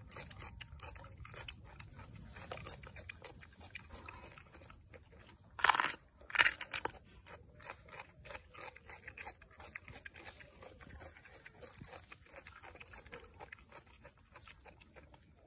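Macaque chewing a raw green bell pepper, a steady run of small moist crunches and clicks. About six seconds in there are two louder bursts of noise, a second apart.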